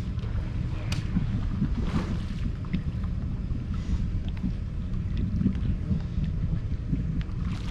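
Wind buffeting the microphone aboard a fishing boat on open water, a steady low rumble, with a couple of faint knocks about a second and two seconds in.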